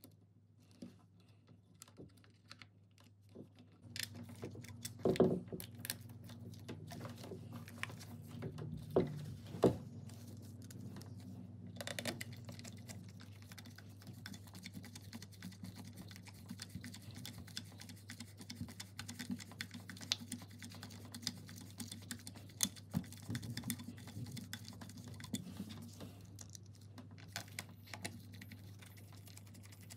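A screwdriver driving small screws into a Makita drill's trigger switch and plastic handle housing: a run of light, irregular clicks and ticks of the bit and parts, with a few louder knocks about five and ten seconds in. A steady low hum comes in underneath about four seconds in.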